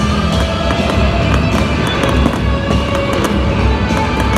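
Aerial fireworks going off in quick succession, sharp bangs and crackles, over loud music.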